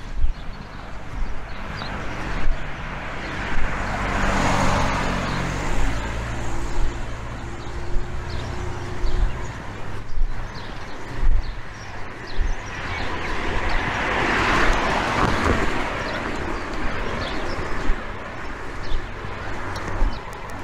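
Cars passing on a town street: tyre and engine noise swells and fades twice, a few seconds in and again past the middle, with a steady low engine hum under the first pass.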